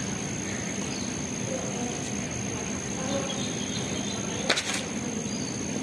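A tennis ball struck by a racket, a single sharp pop about four and a half seconds in with a second knock just after, over a steady high-pitched drone and outdoor background hiss.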